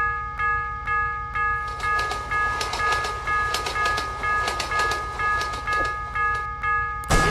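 Railway crossing warning bell ringing steadily about twice a second while a cartoon train runs through the crossing with a low rumble and wheel clatter. A sudden loud hit comes right at the end.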